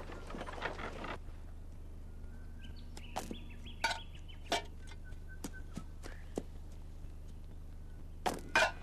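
Slingshot stones striking empty tin cans on a wooden fence rail, a scattered series of sharp clinks and knocks as the cans are hit and knocked off. Birds chirp faintly in the background.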